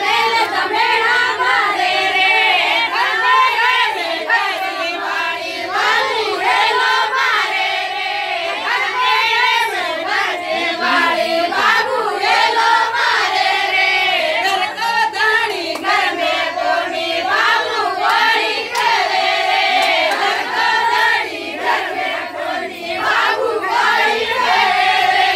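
A group of women singing a Rajasthani wedding folk song together, with scattered handclaps.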